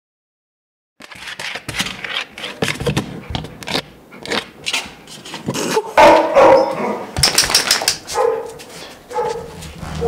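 Dogs barking in shelter kennels: a quick run of short, sharp barks starting about a second in, the loudest about six seconds in.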